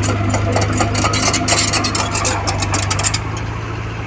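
Diesel engine of heavy earthmoving equipment running steadily, with irregular clanks and scraping that die down about three seconds in.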